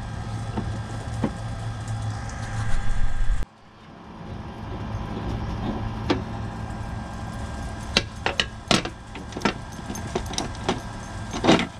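Hand tools and metal parts clicking and clinking while the nut and pulley are taken off a riding mower's blade spindle. A steady low hum cuts off abruptly about a third of the way in, and several sharp clicks follow in the second half, the loudest near the end.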